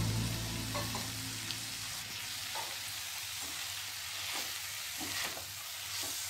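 Oats and vegetables sizzling in a metal kadai as a steel spoon stirs them, with a steady hiss and several light scrapes and taps of the spoon against the pan.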